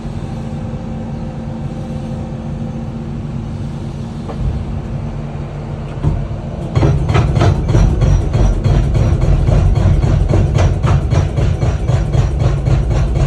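Furukawa FXJ275 hydraulic breaker, with the carrier machine's engine running steadily underneath; about halfway in the breaker starts hammering, a fast even train of sharp blows, several a second, that runs to the end.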